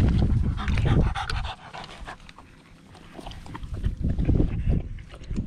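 French bulldog panting hard after play. A low rumble on the microphone covers the first second and a half.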